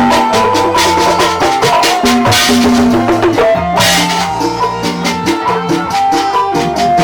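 Band music played through a sound system for a sound check, with no added effects. Drums and hand percussion keep a steady beat under sustained melodic notes, with two bright crashes about two and a half and four seconds in.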